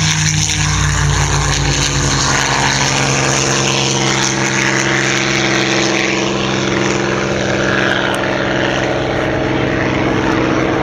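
Piston-engined propeller aircraft running at power, a steady loud engine drone with several held engine tones.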